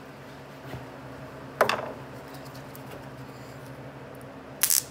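Small handling noises from a two-part epoxy syringe being picked up and worked over a piece of cardboard: one sharp click about a second and a half in, and a short scratchy hiss near the end. A steady low hum runs underneath.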